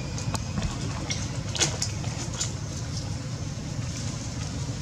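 Steady low outdoor rumble with a few short, sharp crackles, the loudest about a second and a half in.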